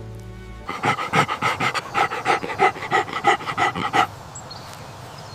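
A dog panting quickly and evenly, about six breaths a second, for about three seconds before stopping abruptly.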